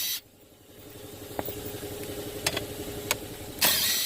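Two short bursts of a tool turning out the 10 mm steering-column bolts, one at the very start and one near the end. In between are a few light clicks over a steady hum from the running car.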